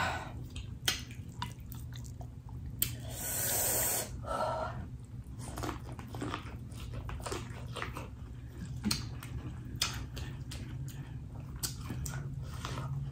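Close-miked eating sounds: a person biting and chewing corn on the cob, with wet mouth smacks and clicks throughout and one longer, louder noisy sound about three seconds in.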